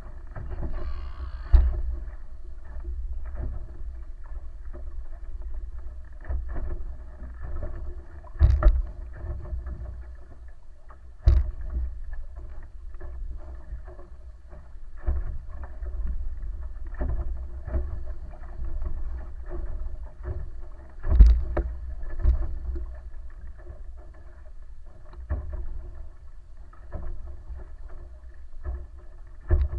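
Wooden wa'apa outrigger sailing canoe under way, heard muffled: a steady low rumble of wind and water with a faint steady hum, broken by a few sharp knocks.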